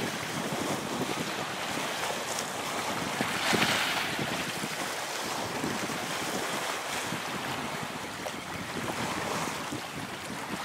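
Small waves washing against the shore, with wind buffeting the microphone; one wave washes in louder about three and a half seconds in.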